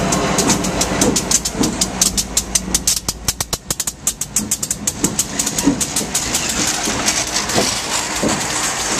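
Freight train led by CSX diesel locomotives passing close by. The wheels click rapidly over the rail joints, with the locomotives' low engine hum under the clicking at the start and again near the end.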